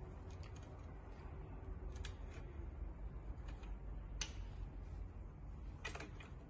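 Light metallic clicks and scrapes of an Allen key working bolts into a metal plate on an aluminium frame upright, scattered and irregular, the sharpest about four seconds in and a quick cluster near the end, over a low steady background hum.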